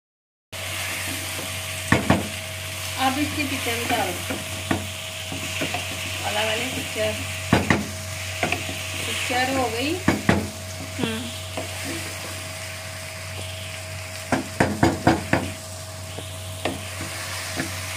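Okra, onions and tomatoes sizzling in a nonstick wok while a wooden spatula stirs them, with sharp knocks of the spatula against the pan. Several knocks come in quick succession about fifteen seconds in.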